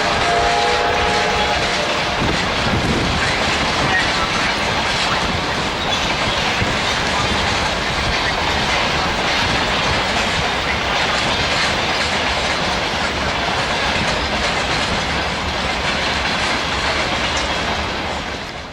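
Steam train running close by, its wheels clattering steadily on the rails. A chord of whistle notes sounds in the first second and a half. The running sound drops off near the end.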